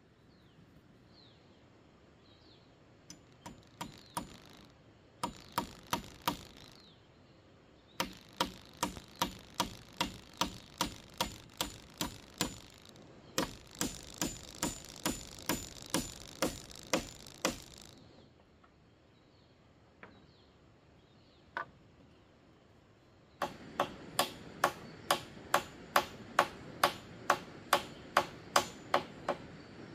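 A hand tool striking bamboo over and over, about two to three hits a second, in several runs with pauses between them. The hits in the last run ring with a tone.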